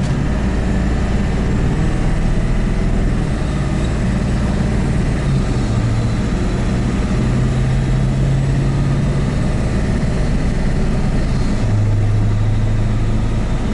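Ford 7.3 Powerstroke V8 turbodiesel heard from inside the cab, pulling a loaded trailer on light throttle. Its steady drone steps to a new pitch a few times as it picks up speed; the owner suspects a boost leak is making it slow.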